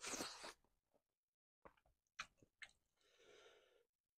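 Close-up wet mouth sounds of eating squid in sambal by hand: a slurp as a handful goes into the mouth at the start, a few sharp wet smacks about two seconds in, then a softer wet rustle near the end.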